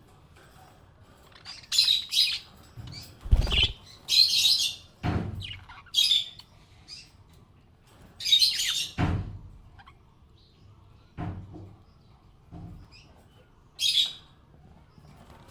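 Small pet parrot giving short, harsh chirps in scattered bursts, with several dull thumps in between.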